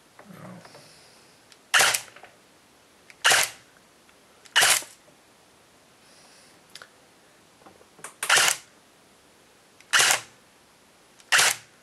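Customized Kalash AK-105 RK08S airsoft electric gun (AEG) with a high-torque motor, fired on semi-auto into a chronograph: six sharp single shots about a second and a half apart, with a longer pause after the third.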